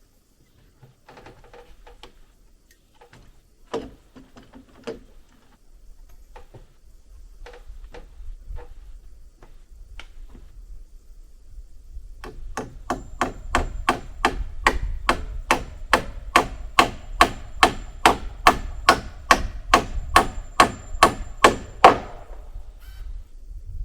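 Hammer driving nails into wood: scattered knocks and taps, then from about halfway a steady run of about two dozen blows, roughly two and a half a second, growing louder up to a last hard strike, over a low rumble.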